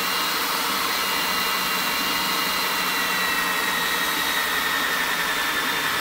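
Power drill with a large bit running steadily as it bores a hole through a plastic project-box lid, its high whine sinking slightly in pitch as the bit cuts.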